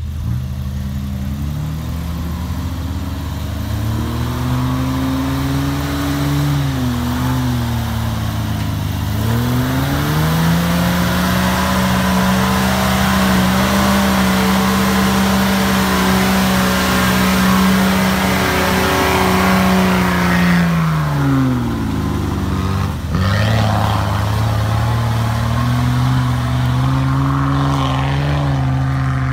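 Off-road vehicle engine pulling under load, its pitch rising and holding, easing off briefly about eight seconds in, then rising again. It drops away sharply a little after twenty seconds and climbs once more near the end.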